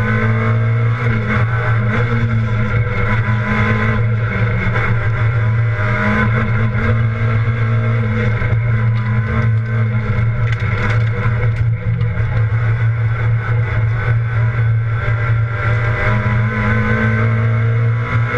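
Rally car engine run hard, heard from inside the cabin, its note climbing and dropping several times as the car accelerates and eases off.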